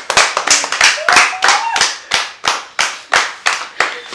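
A small group of people clapping together in a steady rhythm, about four claps a second. A single voice rises briefly over the clapping about a second in.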